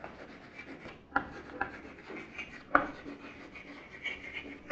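Chalk writing on a blackboard: irregular scratchy strokes with a few sharper taps as letters are formed.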